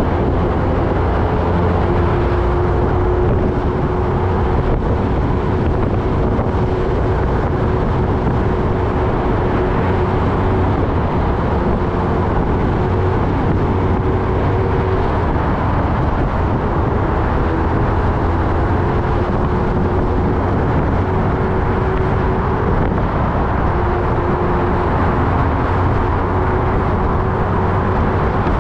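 Kawasaki Ninja ZX-10R's inline-four engine running at a steady highway cruise under a constant rush of riding noise. The engine note holds nearly level, rising and dipping only slightly.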